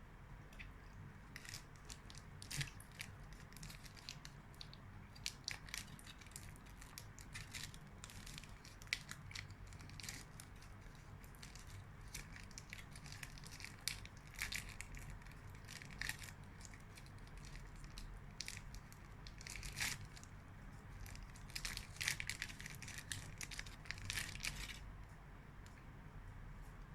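Close-up eating sounds of chocolate bonbons: scattered sharp crackles from a wrapper being crinkled and crunchy chocolate being bitten and chewed, thickest near the end, over a faint low hum.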